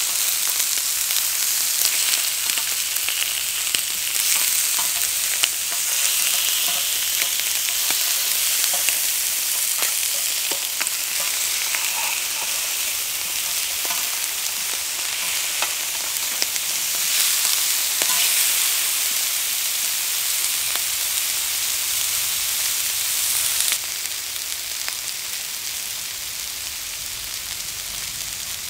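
Chicken drumsticks sizzling on a hot cast-iron cauldron-lid griddle, with scattered small clicks and pops as metal tongs turn the pieces. The sizzle drops a little in level near the end.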